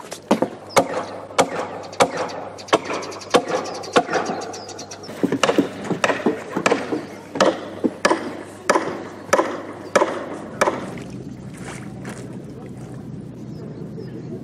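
Regular knocks on wooden planks, about one and a half per second with lighter knocks in between, stopping about ten and a half seconds in. A steady low hum then remains.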